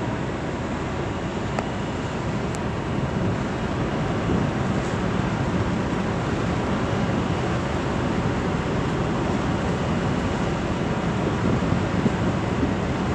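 Steady low rumble of a ship's engines with wind noise on the microphone, heard from the deck of a vessel at sea.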